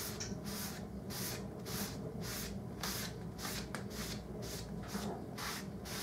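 Cloth rag rubbed back and forth over a wooden board, wiping on wood stain: a rhythmic scrubbing hiss of about three strokes a second, over a steady low hum.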